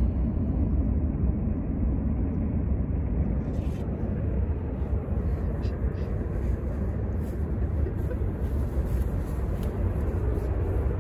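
Wind rumbling and buffeting on the microphone, a steady low fluttering noise, with a few faint clicks of handling.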